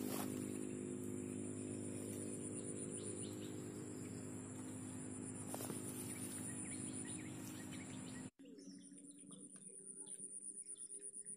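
Swamp-edge nature ambience: a steady, high-pitched insect buzz with a few bird chirps over a low steady hum. The sound drops out for an instant about eight seconds in and comes back quieter.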